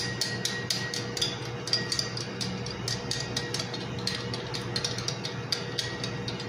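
Spoon clinking rapidly against a small ceramic bowl while stirring an oil-and-vinegar salad dressing, a few clicks a second, over a steady hum.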